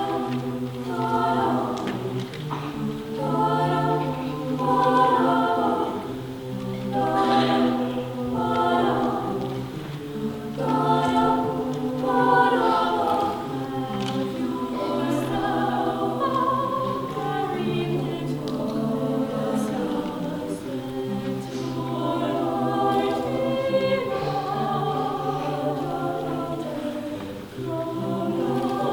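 High school madrigal choir singing in parts, holding sustained chords phrase by phrase.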